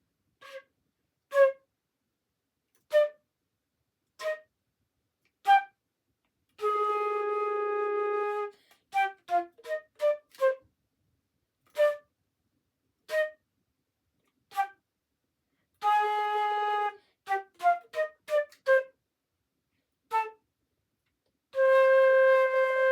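Solo flute playing a slow, simple tune in short detached notes with silence between them, broken by quicker runs and a few held notes, ending on a long held note.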